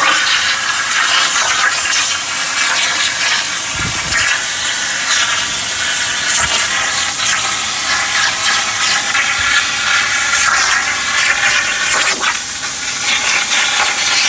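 Hypertherm 45XP plasma cutter arc cutting steel: a steady loud hiss of air and arc with a faint high whine through it.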